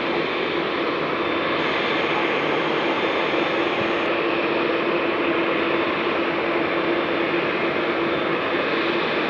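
Jet airliner engines at takeoff thrust: a steady, loud rush of noise with a constant droning tone underneath.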